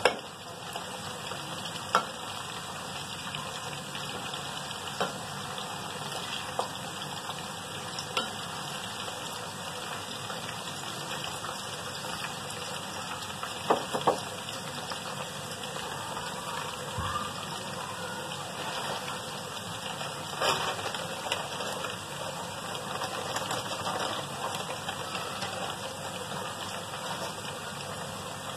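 Potato pakoras deep-frying in hot oil in an iron karahi: a steady sizzle, with a handful of sharp clicks scattered through it.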